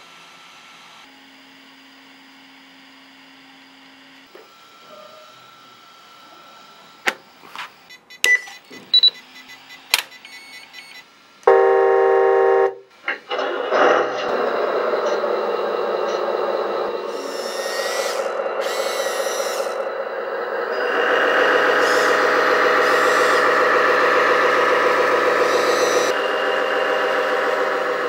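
1/14-scale RC hydraulic wheeled excavator: a few sharp clicks, then a short, loud horn-like tone just before halfway. After that a simulated diesel engine starts and runs steadily, and it gets louder about three quarters of the way through.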